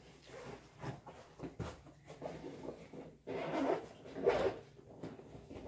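Rummaging for a school binder: a run of short rustles and scrapes of bag, papers and binder being handled, loudest about three and a half to four and a half seconds in.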